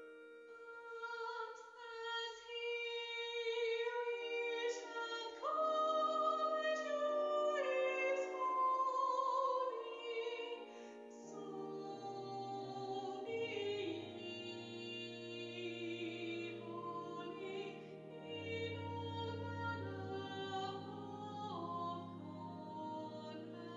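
Church choir singing an anthem in slow, sustained phrases, its voice parts recorded separately on phones and mixed together. Lower parts join about halfway through.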